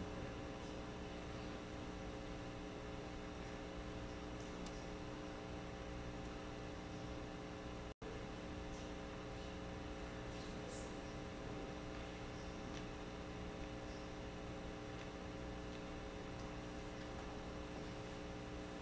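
Faint steady mains hum on the church sound line while the wireless microphone carries no voice. The hum cuts out for an instant about eight seconds in.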